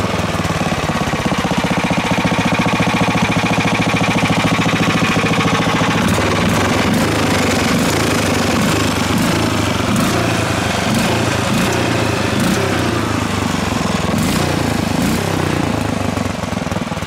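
Small single-cylinder OHV go-kart engine running after being pull-started, a fast steady firing through its rusty muffler. In the second half its speed rises and falls several times.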